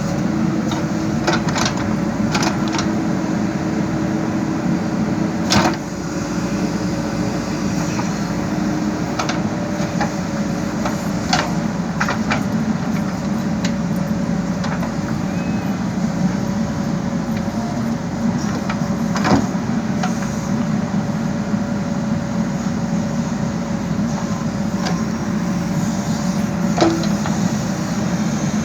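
JCB backhoe loader's diesel engine running steadily while digging, with a faint steady whine over the engine drone and sharp knocks now and then.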